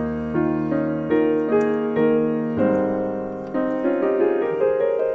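Background piano music: a gentle melody of single notes, about two a second, over a held bass note that drops out about halfway through.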